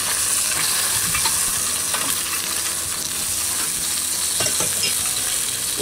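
Chicken thigh steaks sizzling steadily on a hot charcoal grill grate, with a few light clicks of metal tongs against the grate as the steaks are turned.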